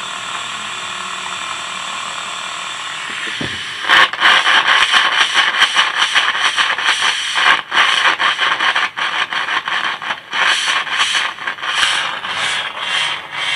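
PA amplifier hissing through its speaker, then from about four seconds in loud scratchy crackling as a dirty volume potentiometer is turned back and forth. The crackle is the sign of dirty volume pots being cleaned with oil.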